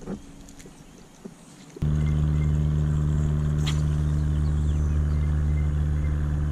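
A steady low hum like a running motor, starting suddenly about two seconds in and holding one unchanging pitch.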